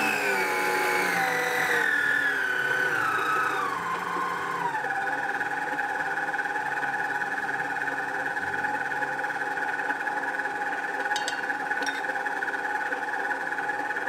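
Mito MX100 stand mixer's motor whining as it is turned down from speed 12 to speed 2. The pitch falls in steps over the first few seconds, then settles into a steady lower whine while the wire whisk beats the egg batter. A few light ticks near the end.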